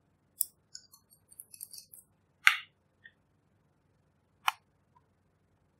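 Small plastic makeup containers being opened by hand: a few faint light ticks, then two sharp plastic snaps about two seconds apart, the first the loudest, as a tube's cap is pulled off.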